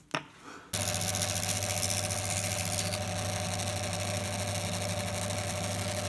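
A woodworking bandsaw running steadily, coming in abruptly under a second in after a short click, with a low motor hum, a steady whine and hiss.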